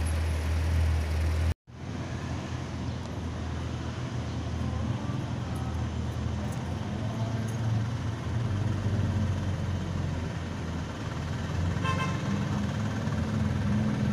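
A deep, steady engine rumble, cut off abruptly about one and a half seconds in. Then comes street traffic noise with engine sound, a brief car-horn toot about twelve seconds in, and a Porsche 911 Turbo's engine growing louder near the end as the car pulls toward the listener.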